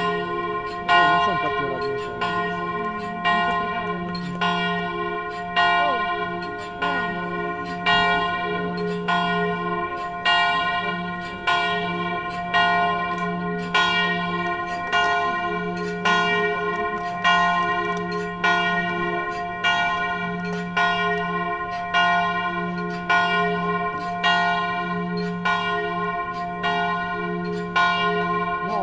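A single large church bell tolling, struck steadily about once a second on the same note, each stroke ringing on and fading before the next.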